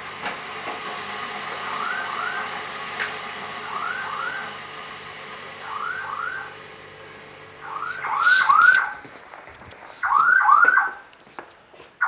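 IDS alarm system sounding for the smoke-detector zone: pairs of quick rising chirps repeating about every two seconds, the signal that the smoke detector has tripped. The chirps grow louder in the second half.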